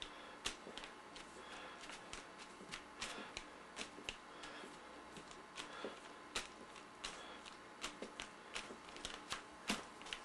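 Fingertips dabbing and patting wet paint on a canvas: irregular soft taps, a few each second, over a steady hiss.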